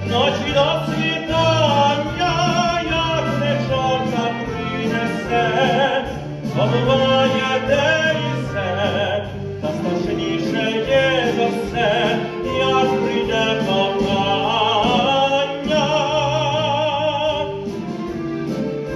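A man singing in an operatic style with a strong vibrato, accompanied by an orchestra.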